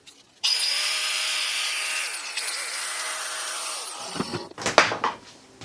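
A budget angle grinder with no disc fitted is switched on and runs at full speed with a high whine, then winds down as it coasts to a stop. A few sharp clicks and knocks follow near the end, the loudest just under five seconds in.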